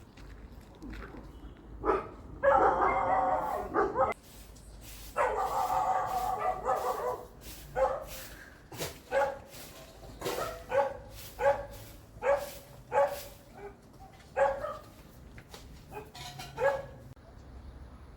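A dog vocalising: two drawn-out calls of a second or more each, then a string of about a dozen short barks, roughly three every two seconds.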